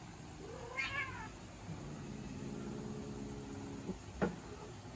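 A cat gives a short yowl that rises and falls, then a low, steady growl of about two seconds during a standoff with another cat. A single sharp knock comes near the end.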